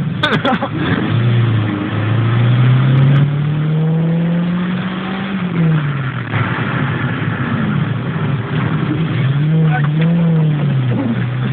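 Toyota Celica engine heard from inside its stripped-out cabin, rising steadily in revs for about five seconds as the car accelerates, dropping back, then rising and falling twice more before settling at low revs. A few sharp knocks sound just after the start.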